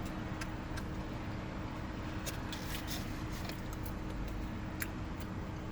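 Eating sounds: a few faint, irregular clicks of chewing and handling food over a steady low hum.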